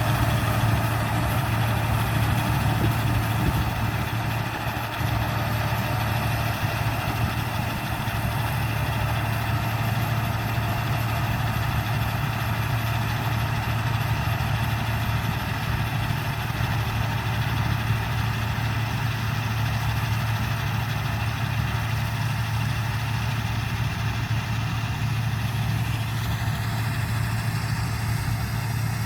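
Rice combine harvester's engine running steadily with a low, even hum; a higher whine rises near the end.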